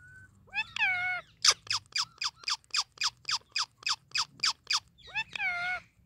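Indian ringneck parakeet calling: a drawn-out call that drops in pitch, then a quick run of about a dozen short, sharp squawks at about four a second, then another drawn-out call near the end.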